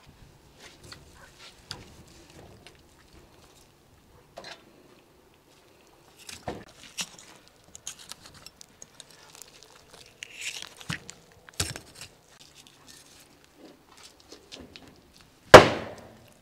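A knife cutting and scraping raw meat and membrane from an ostrich leg bone on a wooden table: scattered small clicks, slicing and wet scrapes. Near the end comes one sharp, much louder knock, the loudest sound here.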